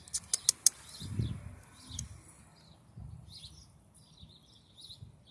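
Small birds chirping on and off, with a few sharp clicks in the first second and a gust of wind rumbling on the microphone about a second in.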